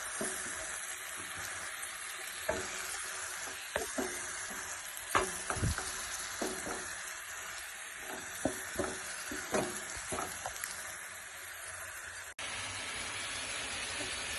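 Ivy gourd slices and ground onion paste sizzling in hot oil in a kadai, with a spatula stirring and knocking against the pan at irregular moments.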